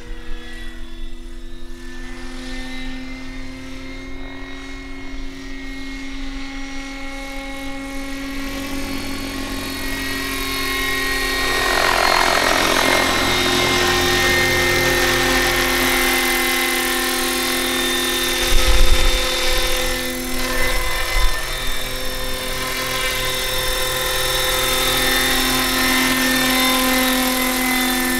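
Electric-converted 1:7-scale Bell 230 RC model helicopter, running on a 12S LiPo, flying in close and coming down to land. Its motor and rotors make a steady whine in several pitches that grows louder as it nears, with a rushing noise as it comes close. A few low thumps come about two-thirds of the way through.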